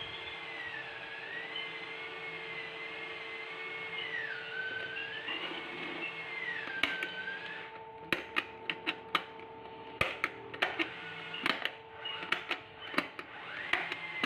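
Sharp clicks of a stand fan's push-button speed switches being pressed over and over from about halfway on, as the switch is checked with a multimeter. Under them a steady hum, and in the first half a high tone that wavers slowly up and down.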